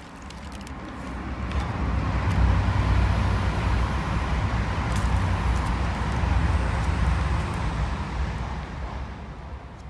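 A car passing by on a nearby road: its noise swells over a couple of seconds, holds for several seconds and fades away.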